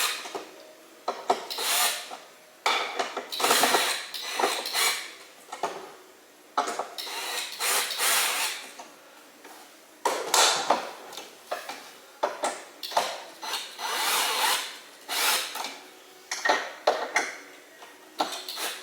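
Screws being driven into flat-pack furniture, in short irregular bursts of tool noise with pauses between them.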